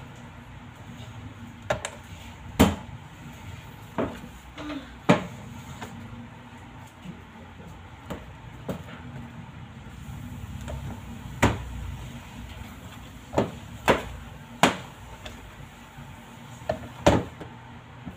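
About ten sharp knocks and clacks, spaced irregularly, from dough being handled, cut and set down on a stainless steel work table and a plastic kitchen scale. A low steady hum runs underneath.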